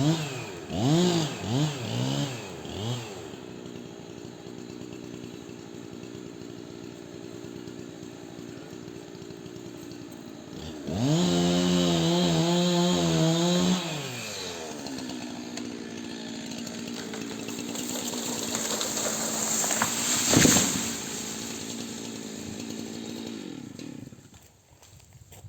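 Chainsaw revved in several short blips, then running steadily at a lower speed, opened to full throttle for about three seconds, then running lower again. A single sharp knock comes about twenty seconds in, and the saw cuts off near the end.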